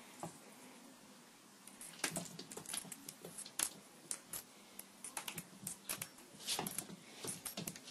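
Cat's claws clicking and scrabbling on a hard floor as it dashes and pounces in play: irregular quick clicks and taps that start about two seconds in.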